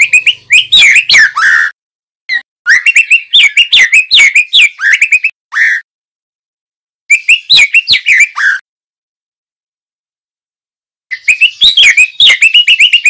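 Juvenile male white-rumped shama singing: loud, rapid phrases of varied whistles and chips that slide up and down. The song comes in four bursts, with silent pauses of about half a second to a few seconds between them.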